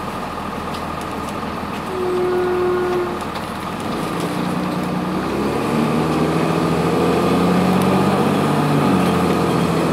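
Cummins ISC diesel engine of a 2002 Blue Bird CS transit bus, heard from inside the bus. It runs steadily, then from about four seconds in it speeds up and rises in pitch as the bus accelerates, with a step down in pitch near the end as the Allison automatic transmission shifts up. A brief steady whine sounds about two seconds in.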